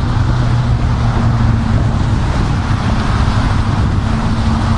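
A steady low engine drone under wind rushing across the microphone.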